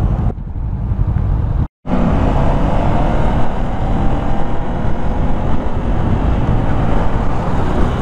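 Honda CB500F motorcycle being ridden on the road, heard from the rider's camera: steady wind rush and rumble on the microphone over the engine. The sound cuts out for an instant just under two seconds in.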